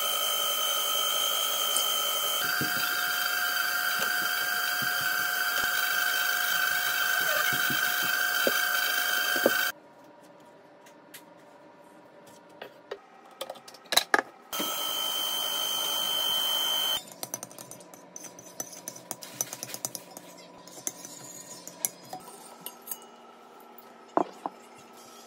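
KitchenAid Professional 5 Plus stand mixer running with its wire whisk, a steady motor whine whose pitch steps up about two seconds in as the speed is raised. It stops about ten seconds in, runs again briefly around fifteen seconds, and then only light clicks and taps are heard.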